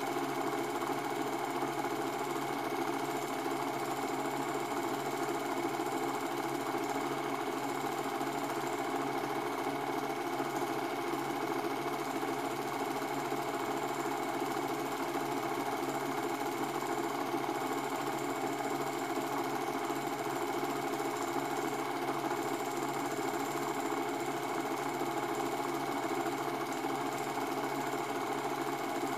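Cine film projector running with a steady mechanical whirr.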